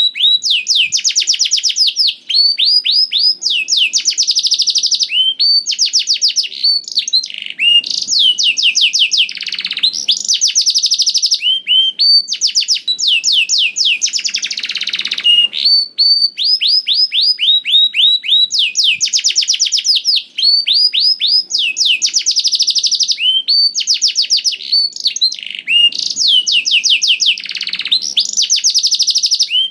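Domestic canary singing continuously in full song: long runs of fast, repeated high sweeping notes, one trill following another with only short breaks.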